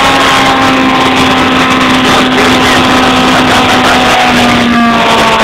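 Yamaha R1 inline-four motorcycle engine in a spaceframed Reliant Kitten, held at steady high revs during a smoky burnout. Its pitch dips slightly near the end.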